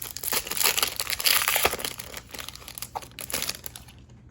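Foil wrapper of a Pokémon TCG booster pack crinkling and tearing as it is opened by hand, loudest in the first two seconds and lighter after.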